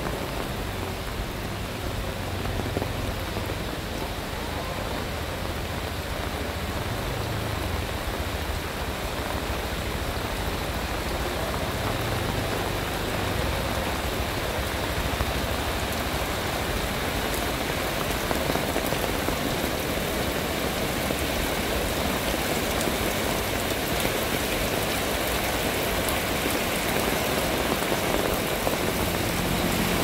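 Steady rain falling on wet asphalt and the surrounding street, a dense even hiss of drops that grows gradually heavier.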